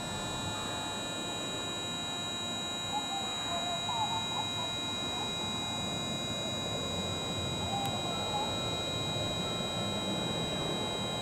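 Electric commuter train standing at the platform, its onboard electrical equipment giving a steady high whine of several pitches at once over a low, even rumble.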